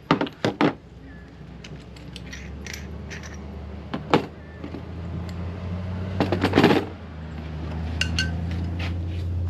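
Metallic clinks and knocks of tools and fittings being handled, several times, over a steady low machine hum that slowly grows louder.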